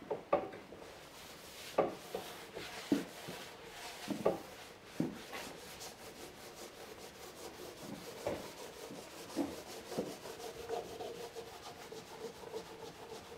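Hands working over a clamped maple glue-up in bar clamps: irregular knocks and clicks from the clamps and boards, with hands rubbing along the wood between them.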